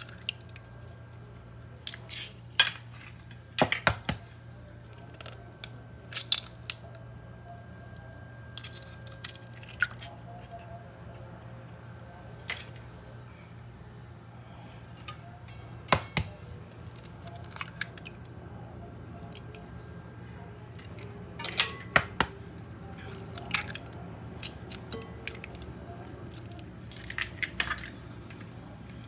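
Scattered clinks and knocks of a mixing bowl and kitchen utensils being handled, a dozen or so spread out with the sharpest near the start, the middle and about 22 seconds in, over a steady low hum.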